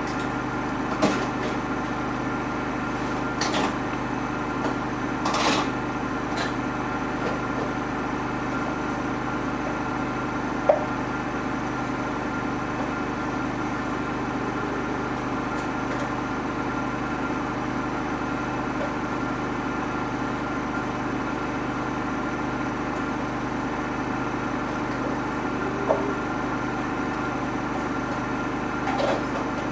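Samsung washing machine running a wash cycle: a steady motor hum, with a few sharp knocks as the trainers tumble against the drum.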